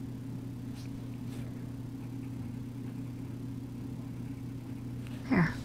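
Steady low electrical hum with a couple of faint scratches of a coloured pencil on paper early on.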